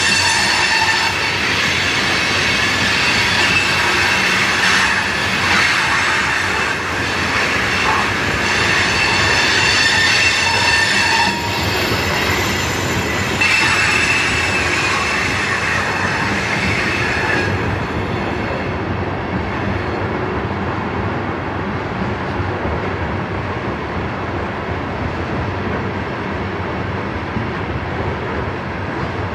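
Loaded coal hopper cars rolling slowly around a curve on a climbing grade, their wheels squealing in several high tones against the rail over a steady rumble of wheels and cars. The squeal dies away about two-thirds of the way through, leaving only the rumble.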